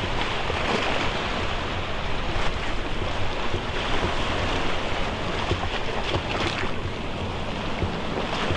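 Wind buffeting the microphone over a steady rushing wash of sea noise, with no distinct engine tone standing out.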